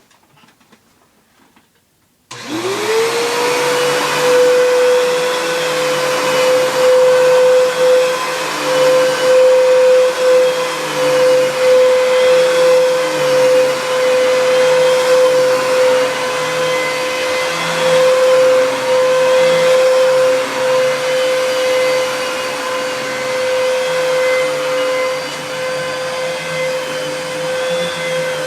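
Fantom Cyclone XT upright vacuum cleaner switched on about two seconds in. Its motor spins up with a quickly rising whine that settles into a steady high hum over a rushing airflow, running on with a slow wavering. The owner says its running sound doesn't sound quite right.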